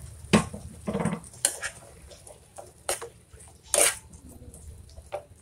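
A plastic spatula stirring shrimp and vegetables in a nonstick frying pan: about five knocks and scrapes against the pan, the loudest near the start.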